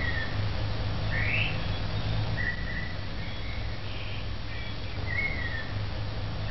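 Outdoor birdsong: a bird repeats a short phrase of whistled notes, one falling, one rising and one held level, over a steady low background hum.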